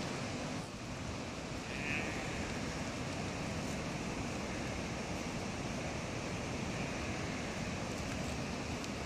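Steady rushing of a fast-flowing mountain river, an even hiss with no break.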